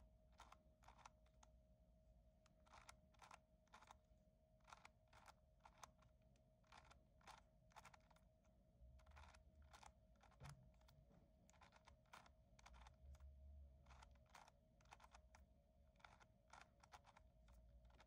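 Faint clicking of a 4x4 speedcube's plastic layers being turned by hand: a series of short sharp clacks, irregular at about two a second, over a faint steady hum.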